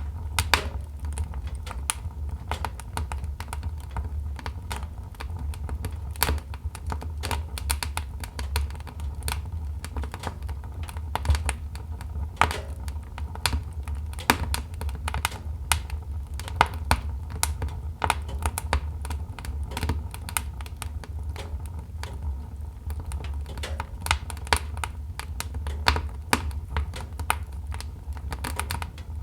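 Wood fire crackling in a fireplace: burning logs give a steady run of irregular sharp snaps and pops over a low, even rumble.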